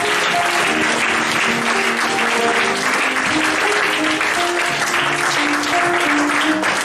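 Audience applauding steadily over instrumental music with short plucked-string notes.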